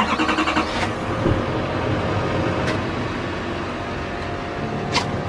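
A pickup truck's engine starts with a brief burst of fast pulsing, then settles into a steady idle. Two sharp clicks come near the end.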